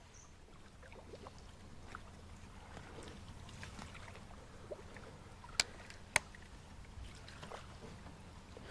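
Faint water sounds, as of water lapping and trickling, over a low steady hum, with two sharp clicks a little over half a second apart about halfway through.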